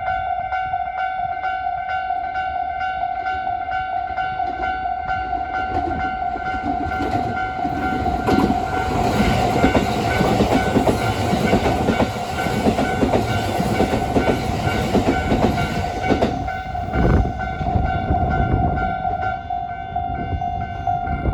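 Japanese level crossing warning bell ringing with a steady, repeating electronic ding throughout, while a train runs over the crossing from about seven to seventeen seconds in, its wheels clattering over the rail joints.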